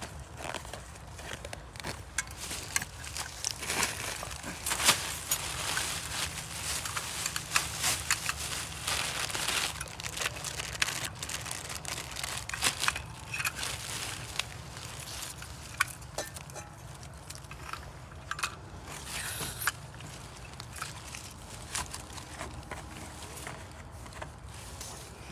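Rustling and crinkling of plastic bags and dry leaves, with scattered clicks and knocks as camping gear is unpacked and a portable gas stove is set up by hand; busiest in the first ten seconds, sparser after.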